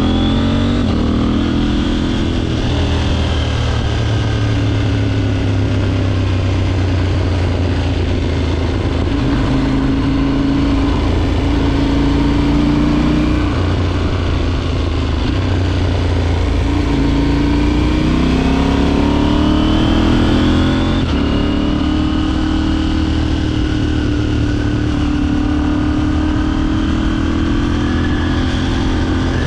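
KTM 790's parallel-twin engine heard from the bike while riding, its note rising and falling with the throttle. The pitch climbs and then drops sharply about thirteen seconds in and again about twenty-one seconds in, like upshifts.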